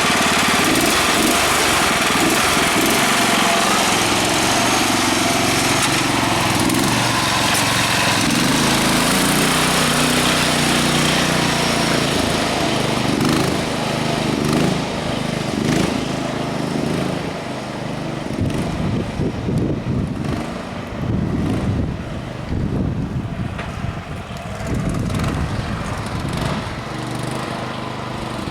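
Garden tractor's small engine running, its speed rising and falling as it is driven. From about two-thirds of the way in there are rattles and knocks from the machine.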